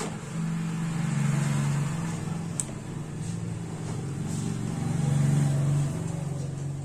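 Motor vehicle engine running, a low steady hum that swells and eases off twice. A single sharp click about two and a half seconds in.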